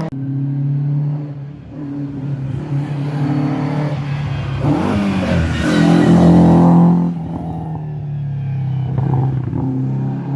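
Rally car engine running at high revs on a special stage. Its pitch dips and climbs again about five seconds in, and it is loudest as it passes closest about a second later, then runs on steadily.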